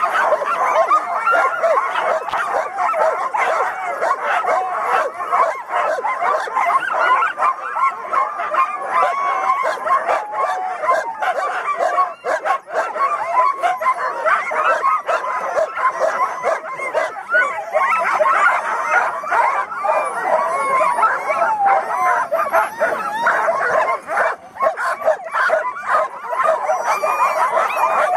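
A team of harnessed sled dogs (huskies) barking, yipping and howling over one another without a break. It is the excited din of a dog team eager to run before the start.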